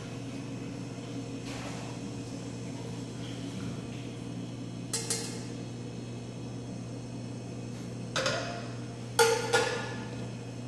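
Broth poured from a wok into a bowl, then the metal wok knocked against the gas stove as it is set back down: one short clank about halfway through and a sharper cluster of clanks near the end, over a steady low hum.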